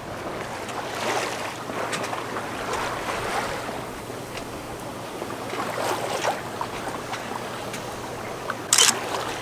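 Water splashing and rushing along the hull of a small sailing yacht under sail, with wind, swelling and fading irregularly. A short, loud burst of noise near the end.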